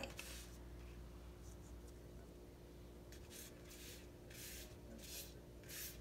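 Faint swishing of a paintbrush made of leaves tied to a stick, brushed across watercolour paper in about five short strokes, starting about three seconds in.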